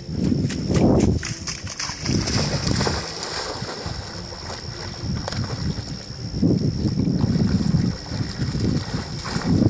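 Dogs splashing and sloshing as they wade and swim through pond water, with wind buffeting the microphone in rough low gusts. A thin steady high tone runs underneath.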